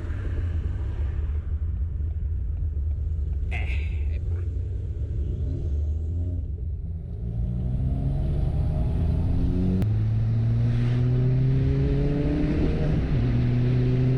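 Ford Fiesta ST engine accelerating through the gears: a steady low drone, then a rising pitch that drops at two upshifts. The engine is misfiring, which the owner puts down to the spark plugs. There is a sharp click about three and a half seconds in.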